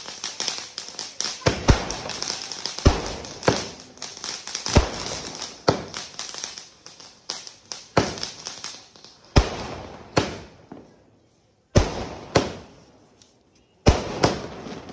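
A 120-shot aerial firework cake firing its shells one after another: a sharp bang roughly every second, with a hissing crackle between shots. In the second half the shots come fewer and further apart, with short pauses between them.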